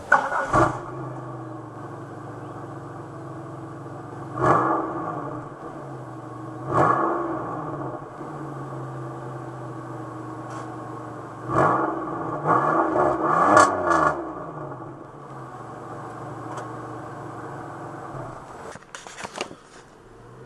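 Pontiac Grand Prix GT's 3.8-litre V6 idling through its exhaust and blipped in short revs: single revs a few seconds apart, then a quick run of several revs that climb and fall back to idle. A few sharp clicks come near the end.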